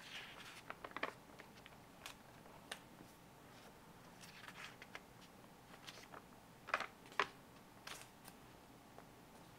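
Faint rustling and light crinkling of thin planner pages being handled and turned by hand, with a few soft ticks and two crisper page snaps about seven seconds in.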